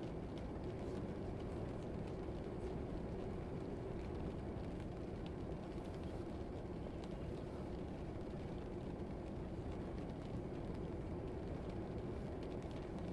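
Steady, low rumbling room ambience of a classroom background track, with a few faint scattered ticks.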